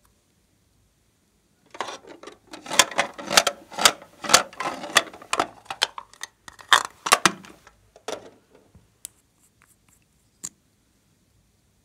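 Hands handling a hard plastic makeup case: a dense run of plastic clicks, taps and rattles as the case is opened and the lip gloss tube inside is taken out, then a few separate clicks as the tube is handled.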